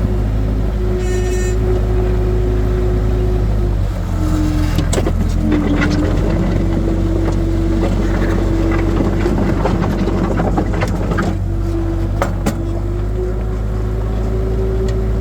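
Skid steer engine running steadily under load, its pitch dipping briefly twice about four and five seconds in. Through the middle there is a spell of rattling and scraping from the machine working dirt, with a few sharp clanks.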